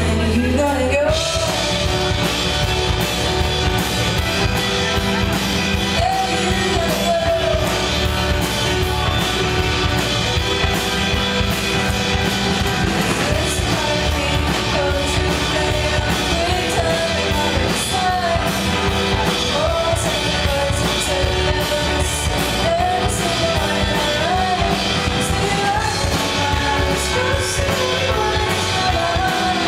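Live indie pop band playing: a woman sings lead over electric guitars, bass and drums, heard loud and full from the audience.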